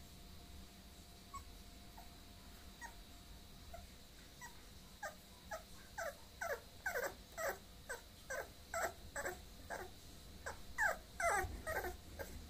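Bulloxer mix puppy whimpering: a run of short calls that each fall in pitch, faint and sparse at first, then louder and coming about twice a second from about five seconds in.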